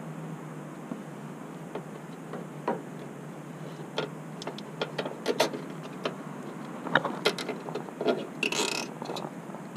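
Nylon zip tie being threaded and pulled tight, its ratchet giving irregular small clicks that come more often after a few seconds, with a short quick rasping zip near the end.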